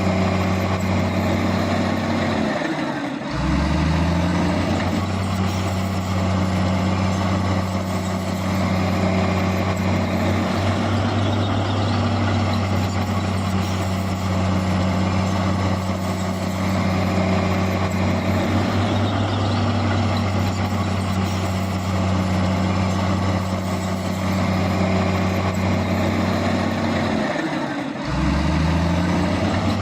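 Heavy diesel engine of earth-moving machinery running steadily at working revs. Twice, about three seconds in and again near the end, the engine note drops briefly and then climbs back up.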